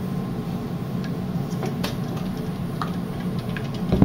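Light clicks and taps of a one-piece steel cleaning rod against an AR-15 upper receiver as a solvent-soaked patch on a jag is pushed through the barrel, with a louder knock near the end.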